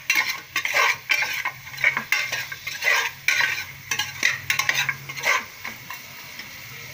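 Metal ladle scraping and knocking against the inside of a pressure cooker in rapid, repeated strokes as goat bone pieces are stirred through tomato and masala, over a steady sizzle of frying on high flame. The stirring stops about five and a half seconds in, leaving only the sizzle.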